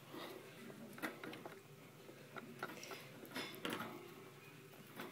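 Faint, irregular clicks and light rattles of a wire pet-rat cage as fingers tap and poke at its bars, with a few sharper clicks about a second in and around three and a half seconds in.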